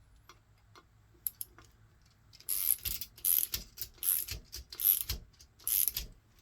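Ratchet clicking in about five short bursts, a little under a second apart, as a 1/4-inch set screw is driven into a tapped exhaust emissions port in a Mopar 360 cylinder head, with a few faint clicks before.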